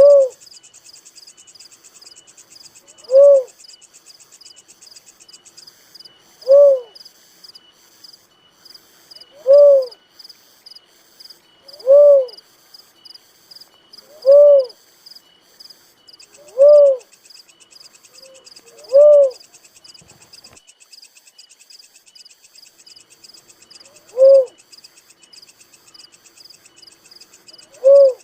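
A dove repeating a single low hooting coo, each note rising and falling in pitch, about every two and a half to three seconds, with a longer gap near the end. A steady high insect trill runs underneath.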